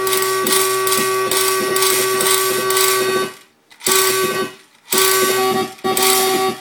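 Electronic buzz from a homemade amplifier and laser sound circuit: several steady tones with a regular ticking of about two or three a second, cutting out abruptly three times and coming back.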